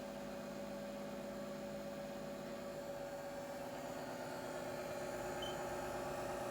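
Black+Decker convection toaster oven running while it heats, a steady electrical hum with a few fixed tones that grows slightly louder about halfway through.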